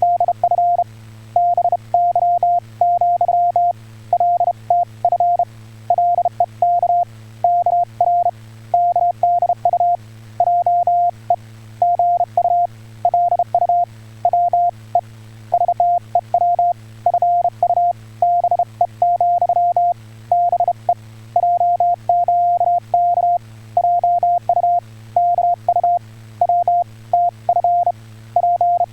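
Korean (Hangul) Morse code on ham radio: a single tone of about 700 Hz keyed on and off in short dots and longer dashes, over a steady low hum.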